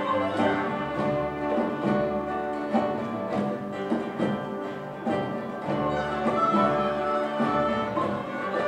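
Children's string orchestra playing a slow piece: bowed violins and cellos carrying sustained notes over plucked guitars, with a higher note held for about a second and a half past the middle.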